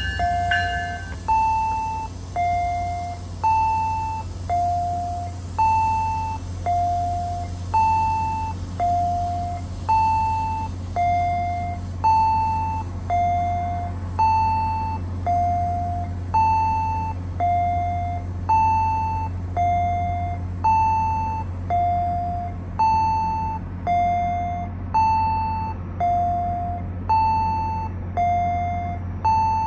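A two-tone electronic warning chime repeating steadily, alternating high and low notes about once a second, each note struck and then fading. Under it runs the steady low hum of the stopped commuter train idling.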